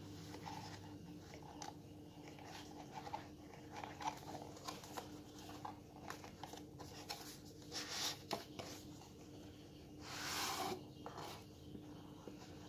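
Black cardboard watch box being handled and opened by hand: faint scratching, tapping and rustling of card, with a longer sliding swish about ten seconds in as the box is pulled apart.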